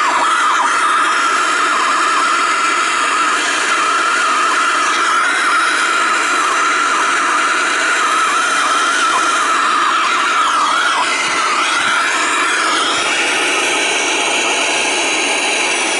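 Handheld gas torch with a swirl tip burning steadily as it heats a copper refrigerant line joint for silver soldering: a steady hissing flame with a wavering whistle running through it.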